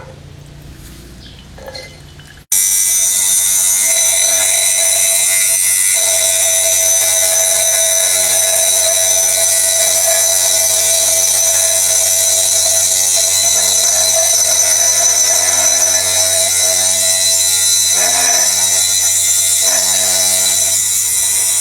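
Homemade bottle-cutting machine's small electric motor and cutting disc running steadily with a high whine while cutting through a glass wine bottle. It starts suddenly about two and a half seconds in.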